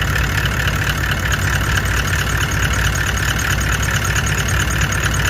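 Car engine idling with the clutch pedal released. Over the idle runs a steady higher-pitched whir with a rapid, even ticking: the noise coming from a brand-new clutch after 15,000 km.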